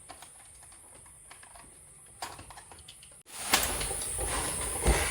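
Faint room noise, then about three seconds in a sudden cut to louder background noise with birds cooing.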